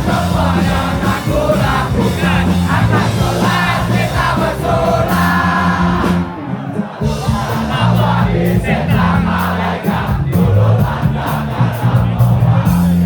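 Punk rock band playing live, with heavy bass and drums, and a crowd singing along and shouting.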